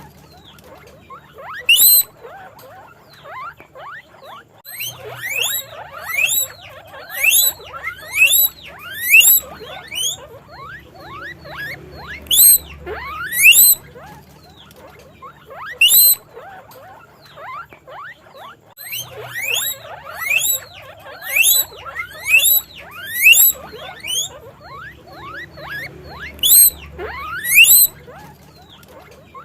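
Guinea pigs wheeking: loud, rising squeals every second or two, with many fainter overlapping squeals between them.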